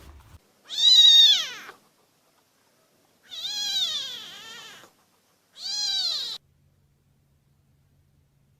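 Kitten meowing three times, high-pitched, each meow rising and then falling in pitch; the second is longer with a wavering pitch.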